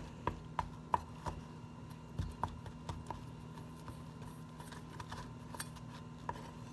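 Spoon clinking and scraping against a cup while stirring a wet, powdery baking-soda slime mixture: irregular light taps, busiest in the first second or so, then sparser.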